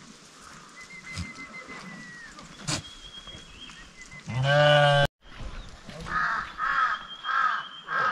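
Livestock calling: one long, loud call about four and a half seconds in, which cuts off abruptly, then four short calls in quick succession near the end.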